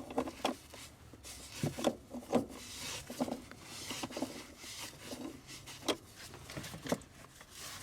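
Scattered clicks, taps and short scrapes of a battery hold-down bracket and its hardware being handled and turned by hand.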